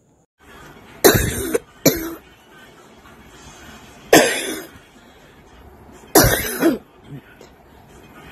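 A woman coughing in three short fits about two seconds apart, the first a double cough. It is a dry, allergic cough, in her own words.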